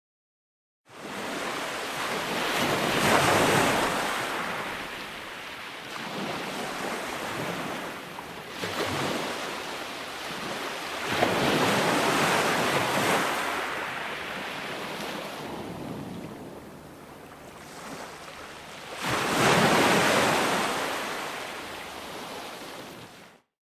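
Ocean waves breaking and washing ashore, with three big surges that swell and fade about eight seconds apart. The sound starts just after a moment of silence and cuts off abruptly near the end.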